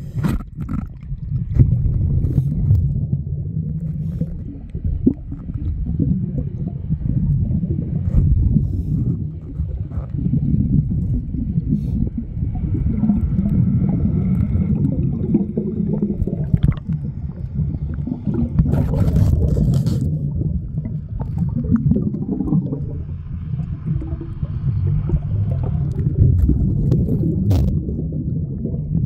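Muffled underwater rumble and water movement picked up by a submerged camera beneath a boat's hull, with scattered sharp knocks, a few of them close together about two-thirds of the way through.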